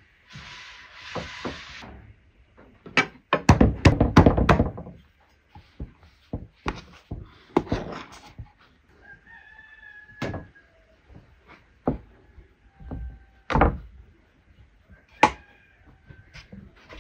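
Hands working soft risen yeast dough in an aluminium basin and setting pieces down on a floured wooden board: a run of wet slaps and knocks, loudest about three to five seconds in. A rooster crows in the background around the middle.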